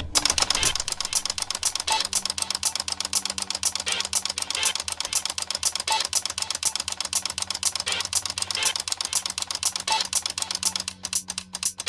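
Gakken flip-clock kit's motor driving the plastic number flaps round fast, a rapid, even clatter of flaps snapping over, about four a second, over a steady low motor hum.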